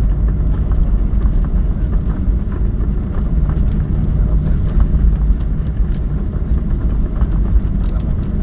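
Airliner noise heard from inside the passenger cabin: a steady low rumble with many small rattles and clicks from the cabin.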